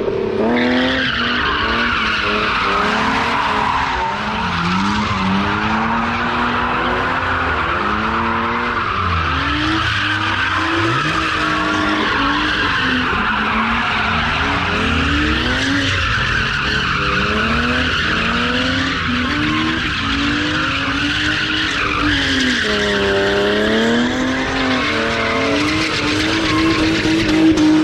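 BMW E36 drift car with its engine revving up and down as it slides, and its tyres squealing on concrete.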